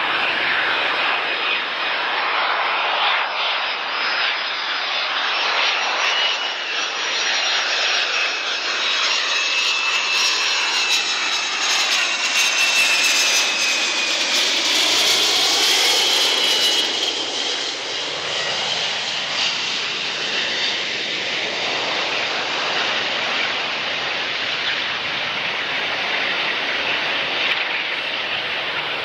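Boeing T-43 Bobcat (military 737-200) with its twin Pratt & Whitney JT8D turbofans flying low on landing approach: a steady jet roar with a high whine. It grows louder, peaks as it passes overhead about halfway through with the whine sliding down in pitch, then eases as it heads for the runway.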